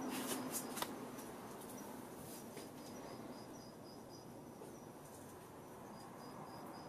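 Crickets chirping: a high chirp repeated several times a second, dropping out midway and coming back near the end. A few sharp clicks in the first second.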